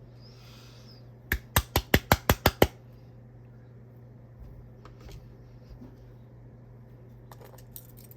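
A hand-held fidget toy being handled: eight sharp clicks in quick succession, about six a second, a little over a second in, then a few faint ticks.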